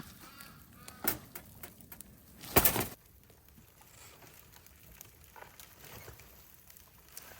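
Birds calling faintly, with a sharp crack about a second in and a louder noisy burst lasting about half a second near the middle.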